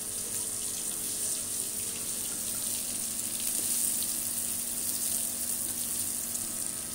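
Eggplant pieces frying lightly in oil in a wok: a steady sizzling hiss with fine crackles.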